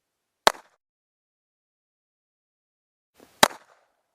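Two single shots from a Smith & Wesson M&P22 .22 LR semi-auto pistol, about three seconds apart, each a sharp crack with a short tail.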